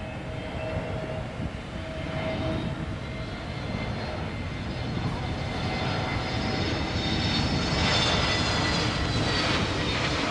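Twin-engine jet airliner on landing approach with its gear down, its engines growing steadily louder as it nears. A high whine builds over the noise in the second half.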